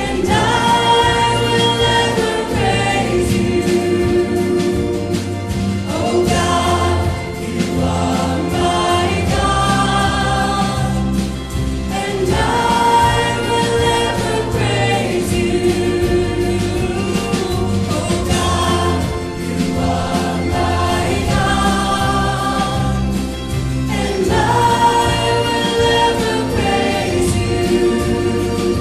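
Live worship band performing a contemporary Christian worship song: men and women singing together over keyboard, electric guitars and bass, in sung phrases that repeat about every six seconds.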